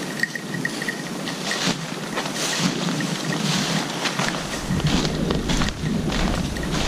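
Crackling and rustling of dry leaves, grass and brush underfoot as someone walks through woodland undergrowth. From a little past halfway, wind buffets the microphone with a low rumble.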